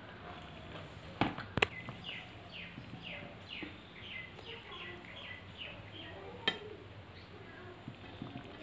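A bird calling a rapid series of short falling chirps, about three a second, behind the soft sounds of rice being mixed by hand and chewed. Sharp clicks of dishes cut in twice about a second and a half in and once more about six and a half seconds in.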